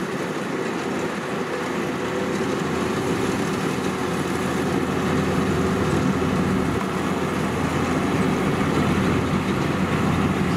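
Kubota DC-93 crawler rice combine harvester's diesel engine running steadily under load as it drives through a muddy rice paddy.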